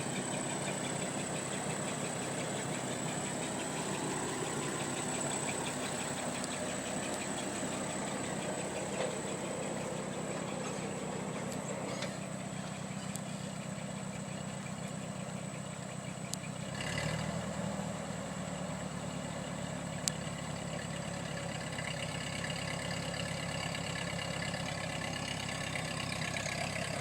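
Ford 8N tractor's engine idling steadily, its note shifting slightly higher and louder about seventeen seconds in, with a few faint clicks.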